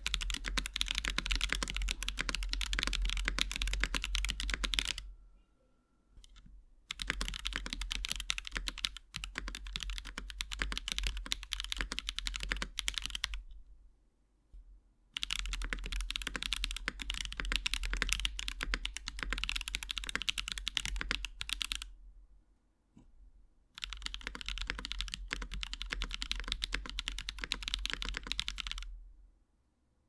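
Steady typing on a mechanical keyboard fitted with Akko V3 Cream switches: tactile Cream Blues, stock and lubed, and lubed linear Cream Yellows. The keystrokes come in four runs of several seconds each, with short pauses between them.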